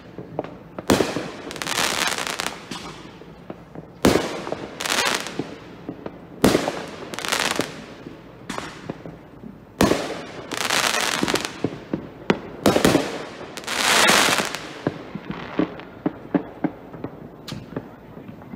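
Aerial fireworks shells bursting overhead: a sharp bang every few seconds, each trailed by about a second of noisy rush, with smaller scattered pops near the end.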